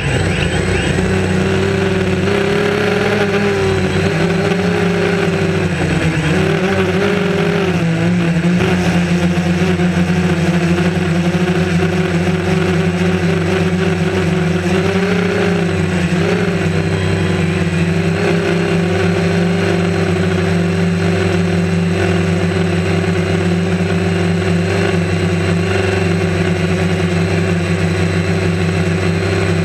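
DJI Phantom quadcopter's four motors and propellers, heard from its onboard camera: a loud, steady whirring hum whose pitch dips and comes back up a few times as the drone adjusts its flight.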